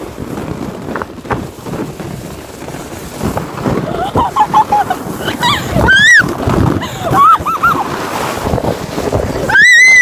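Wind rushing over the microphone during a ride on an inflatable snow tube, with girls squealing in high-pitched shrieks several times from about four seconds in, the loudest just before the end.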